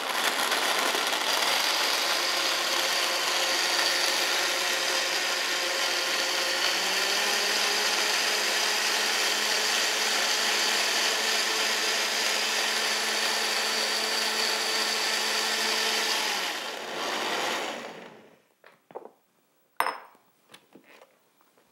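Countertop blender running at high speed, grinding soaked almonds, dates and water into almond milk; the motor note shifts slightly about seven seconds in. It is switched off after about sixteen seconds and winds down, followed by a couple of light knocks.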